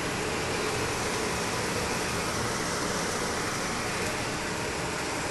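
Chicken breast searing in a grill pan and buttered bread frying face-down on a griddle, sizzling in a steady, even hiss.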